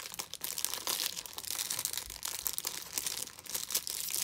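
Clear plastic packaging crinkling and crackling in irregular bursts as a makeup brush is handled and unwrapped from its plastic sleeve.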